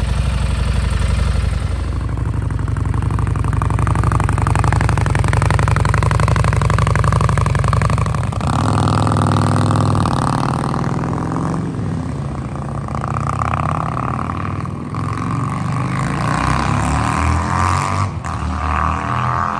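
Harley-Davidson Street Rod 750's V-twin running through a Vance & Hines Competition Series slip-on exhaust: a steady note at first, then revving up and down several times from about eight seconds in.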